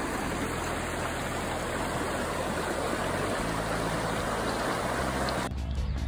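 Shallow rocky creek flowing, a steady rush of water over stones. About five and a half seconds in, the water cuts off and music with a steady beat starts.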